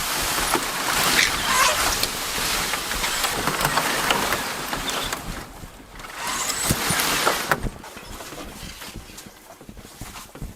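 Rustling and crackling of brush and footsteps along a bush trail, made up of many irregular short strokes; it is loud at first and drops off about three-quarters of the way through.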